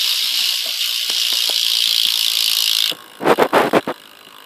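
BMX rear hub freewheeling as the rear wheel spins, its pawls ratcheting in a fast, steady buzz. The buzz cuts off suddenly about three seconds in, and a few loud knocks follow.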